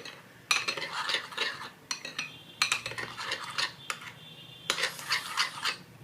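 A spoon stirring cake batter in a bowl, clinking and scraping against the sides in three quick bouts, mixing the last drops of lemon juice into the batter.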